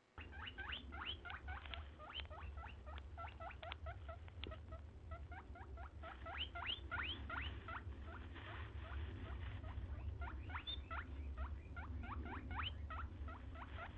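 Young hedgehogs squeaking: a dense run of short, high squeaks, each rising in pitch, several a second, over a low steady hum.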